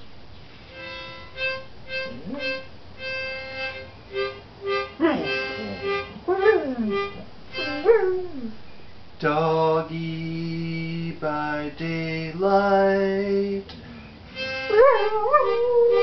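A dog howling and whining along to an instrument being played: short repeated notes at first, then long held chords. The dog's sliding, wavering howls come in over the music, most clearly near the end.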